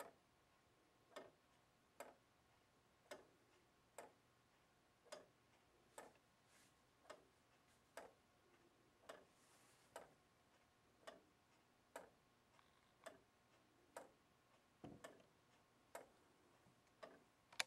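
Clayton Boyer Simplicity wooden gear clock running, its wooden pallets striking the plywood escape wheel gently: light, evenly spaced ticks about once a second. One duller knock about three-quarters of the way through.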